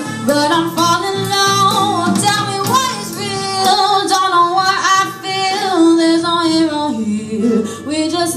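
A live band playing a slow song, with a singer's held, gliding melody over guitar and the rest of the band.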